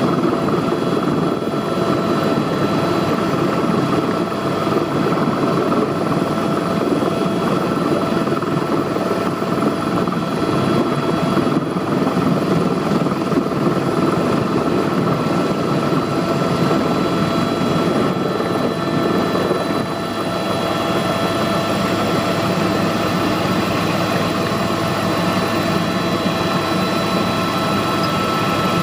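Helicopter in flight: a steady, loud drone of engine and rotor noise with a few constant whining tones running through it.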